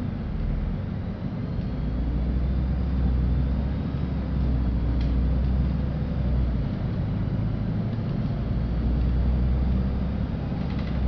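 Cabin noise of a LiAZ-5292.65 city bus under way: a steady low rumble of engine and road, swelling twice for several seconds, with a small click midway.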